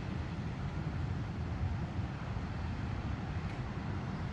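Wind buffeting the microphone outdoors: a steady low rumble with a faint hiss above it.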